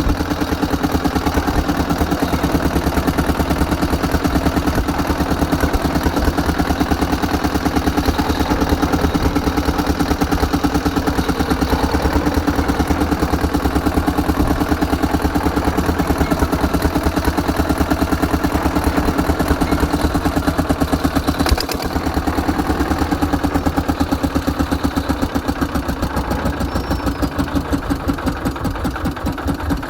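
Old diesel engine running steadily after a fuel pump repair, with a rapid, even beat. There is one sharp knock about twenty-two seconds in, and near the end the beats grow slower and more separate.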